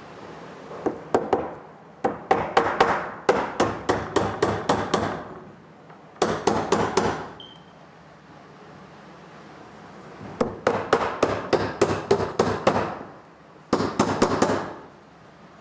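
Hammer driving 6-penny galvanized finish nails into pine boards: runs of quick blows, about four a second, in several bursts with short pauses between.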